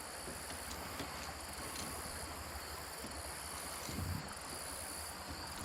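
Steady outdoor background: insects trilling in high steady tones over a low rumble of wind on the microphone, with a soft low bump about four seconds in.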